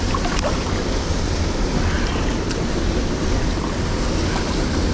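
Steady rush of fast-flowing river water tumbling over rocks.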